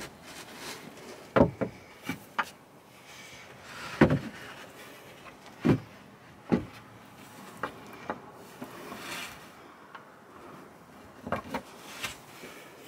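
Plywood platform boards knocking and sliding as one board is lowered into place on a wooden support, then lighter knocks as metal drop pins are set into their holes. About ten separate sharp knocks, the loudest in the first half.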